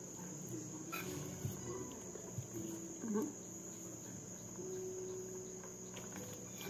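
Steady, high-pitched trill of crickets with a low hum beneath it. Over it come faint clicks and mouth sounds of someone eating with their fingers, and a short hummed sound about three seconds in.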